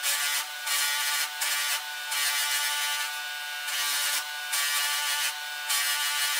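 Dayton bench motor spinning a 320-grit sandpaper sanding mop, running with a steady whine, while a faceted wood block is pressed against the mop in short repeated strokes, each adding a hissing sanding noise. The audio is sped up threefold.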